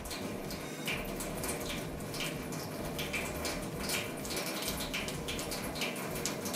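Hands rubbing wet gummed paper tape down onto a wooden board: a run of short wet swishes, about two a second, over a steady hiss.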